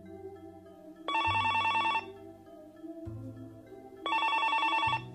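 A telephone ringing twice, each ring a rapid trill about a second long, with a pause of about two seconds between them, over soft background music.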